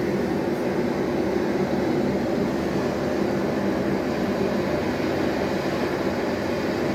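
An electric fan running on low, with a steady whir and faint hum, blended with recorded ocean waves playing from a TV.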